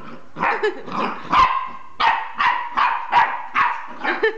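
Jack Russell terrier puppy barking at a new toy in a run of short barks, about two a second.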